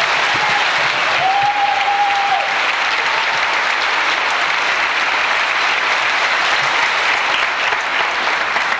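A large audience applauding steadily. About a second in, one held whistle rises above the clapping.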